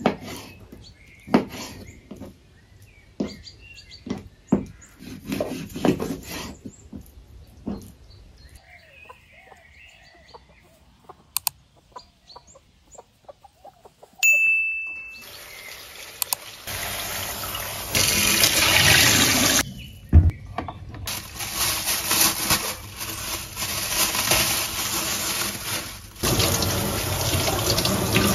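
Knife cutting raw chicken on a plastic cutting board, a run of sharp cuts. Then a short beep, and from about halfway on a kitchen tap running steadily into a stainless steel sink while a cauliflower is rinsed under it.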